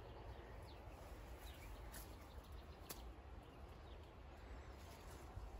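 Quiet outdoor ambience: a low rumble of wind on the microphone, with faint short bird chirps now and then and two faint clicks about two and three seconds in.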